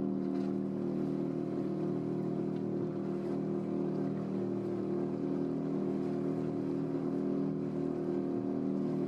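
Small boat's outboard motor running at a steady pitch, with no change in speed.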